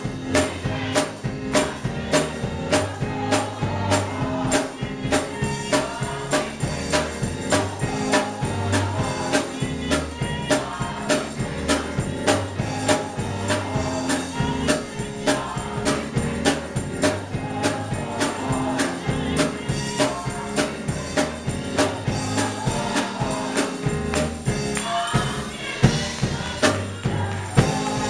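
Live gospel music: a choir singing over a band, with sharp percussion keeping a steady beat.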